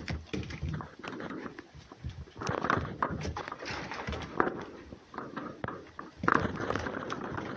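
Animals moving about at close range: irregular scuffing and clicking, with a louder noisy burst about two and a half seconds in and another near the end.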